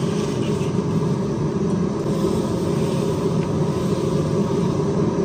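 Water at a rolling boil in a wok on a gas stove, a steady low bubbling rumble, as a bundle of thin dry noodles is lowered in and stirred.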